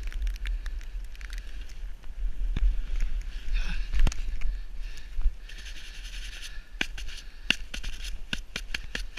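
Wind buffeting an action camera's microphone during a snowboard run, a steady low rumble, with the board sliding and scraping over snow. A cluster of sharp clicks comes in the last couple of seconds.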